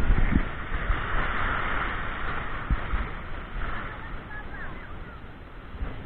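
Small waves washing and swirling through shallow water at the edge of a sandy beach, with a few low thumps near the start and about three seconds in. Faint, short rising-and-falling calls come through about two-thirds of the way in.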